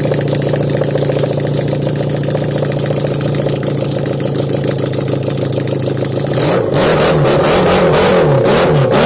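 Honda VFR400R NC30's 400 cc V4 engine running with no exhaust fitted, open ports straight from the engine. It idles steadily, then about six and a half seconds in it is blipped several times, the revs rising and falling quickly and louder.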